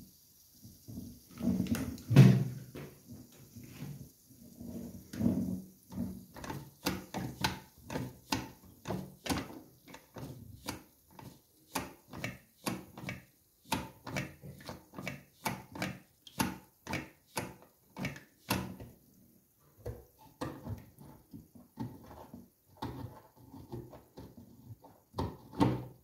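Plastic toilet cistern fill valve being worked back and forth by hand, its float-arm mechanism clicking and knocking in a steady run of strokes, about two a second. The grating is the sound of limescale built up in the valve.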